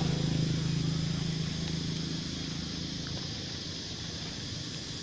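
A steady low engine hum, loudest at the start and fading away over the first few seconds.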